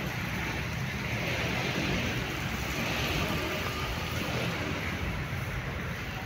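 Wind buffeting the microphone of a phone carried while jogging: a steady low rumble with hiss above it.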